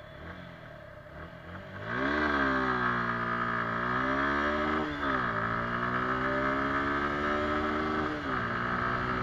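Suzuki Gixxer SF 150's single-cylinder engine accelerating hard from a standstill. After a quiet couple of seconds it rises sharply in pitch and climbs through the revs, drops at an upshift about five seconds in, climbs again, and drops at another upshift a little after eight seconds before climbing once more.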